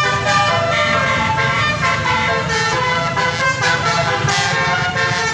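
Bus 'telolet' musical air horn sounding a run of held notes, several pitches at once, stepping from note to note like a tune.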